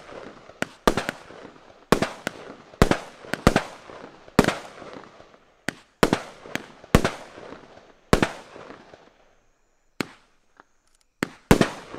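Nico The Last Battle firework battery (25 mm calibre) firing: a string of sharp bangs, one every half-second to a second, each trailing off quickly. About nine seconds in the bangs pause for a couple of seconds, then resume near the end.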